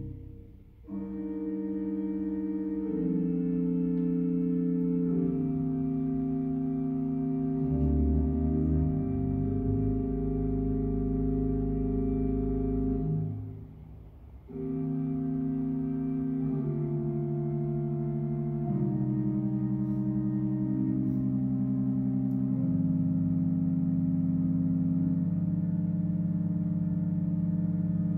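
Church organ playing slow, sustained chords over a low bass line, breaking off briefly twice between phrases.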